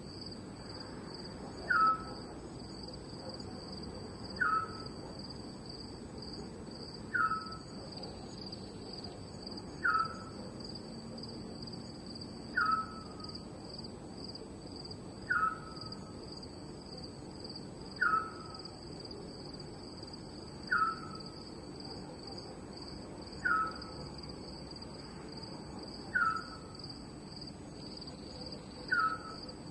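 Night ambience: a steady, high chirring chorus of crickets, with a short falling call repeated at even intervals about every two and a half seconds.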